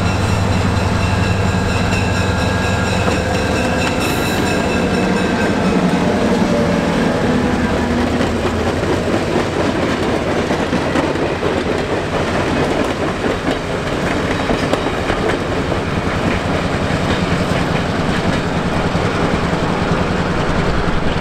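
An excursion train passes close by. For the first few seconds the diesel locomotive's engine gives a deep, steady rumble with a pitched drone over it. Then the passenger coaches roll past with a steady rumble and clatter of steel wheels on the rails.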